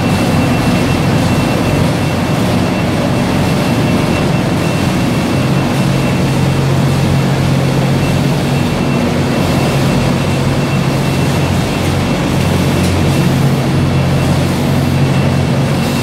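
Steady din of a sugar packing line running: form-fill-seal packing machines, belt conveyors and a baler working together. A thin, steady high whine runs through it, and a low hum grows stronger about five seconds in.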